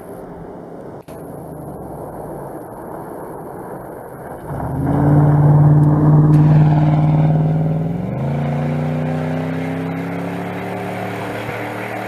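Ford F-150 SVT Raptor rally-raid pickup's V8 engine as the truck approaches, passes close by and accelerates away. It is loudest as it goes past about five to seven seconds in, and the engine note climbs sharply around eight seconds in as it pulls away.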